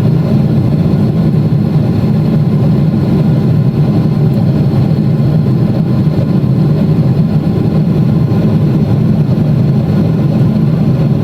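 Steady, loud cabin drone of a Boeing 777-300ER after takeoff, heard from a window seat: GE90-115B engines and airflow noise, deep and unchanging, with a faint high steady whine above it.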